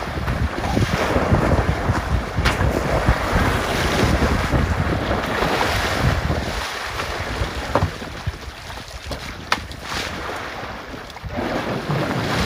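Wind buffeting the microphone over water sloshing and splashing as a bull elephant rolls and heaves himself about in a shallow river, with a few sharp splashes.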